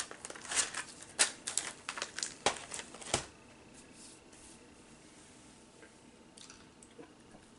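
Plastic candy packaging crinkling and crackling as a Peeps marshmallow candy is taken out: a quick run of sharp crackles for about three seconds, then only a few faint ticks.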